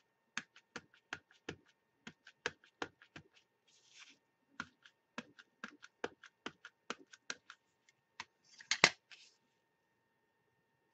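A clear stamp on an acrylic block is tapped and pressed down onto a padded mailer envelope: a run of light plastic clicks and taps, about four a second, then a louder rustling knock late on as the block is handled.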